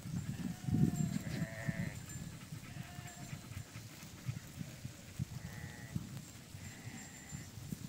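A flock of sheep grazing, with several short bleats from the flock.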